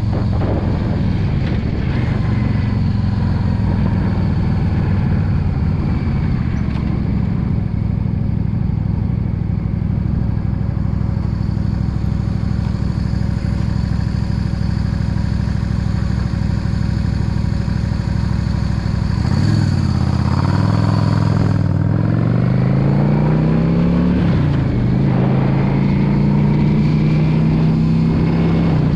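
Yamaha V Star 650 Custom's V-twin engine running at a steady pitch while cruising. About twenty seconds in, the revs drop, then climb as it accelerates, break at a gear change, and climb again before settling.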